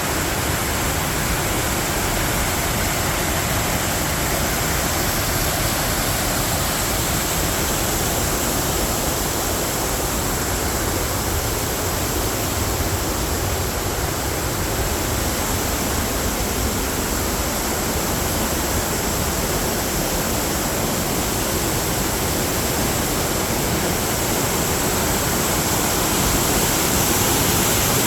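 Steady rushing roar of a tall waterfall: water falling and crashing, unbroken throughout, growing slightly louder near the end.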